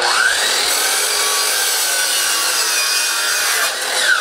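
DeWalt electric miter saw starting up with a quick rising whine, then its blade cutting through a wooden board in one steady, loud pass. Right at the end the trigger is released and the motor's whine falls as the blade winds down.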